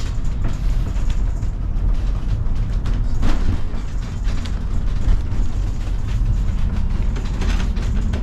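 Duquesne Incline's cable-hauled wooden funicular car riding up its track: a steady low rumble of the car running on the rails.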